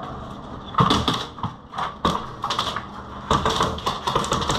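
Airsoft electric guns firing in an indoor room: sharp clicking shots, a few single ones at first, then a rapid string of shots near the end.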